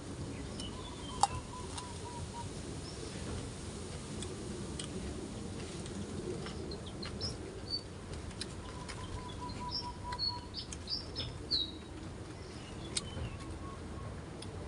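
Birds chirping in short high notes, with a quick trill twice, over a steady low rush of wind on the microphone.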